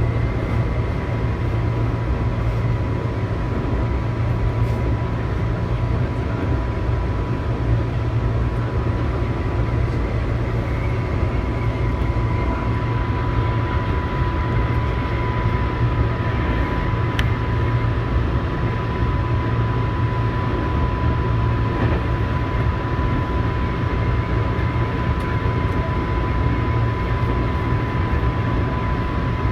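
Tobu 8000 series electric multiple unit heard from inside the car, running at steady speed between stations: a constant low rumble of wheels on rail and DC traction motors, with a thin steady whine held throughout.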